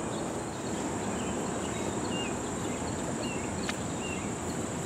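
Steady high-pitched insect chorus over steady outdoor background noise, with a few short chirps and one faint click about three and a half seconds in.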